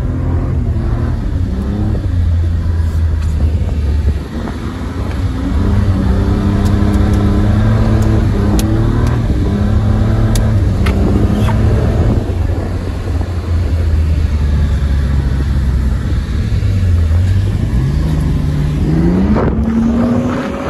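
Mercedes 190E car engine running under load, heard from inside the cabin, holding steady revs with a brief lift-off about four seconds in. Near the end the revs dip, then climb sharply as the engine is revved hard.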